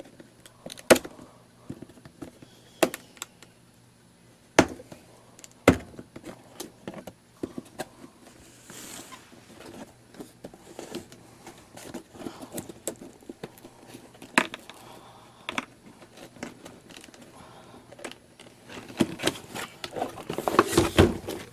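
Scattered knocks, clicks and rustling from objects being handled, with a louder burst of handling near the end and a faint steady hum underneath.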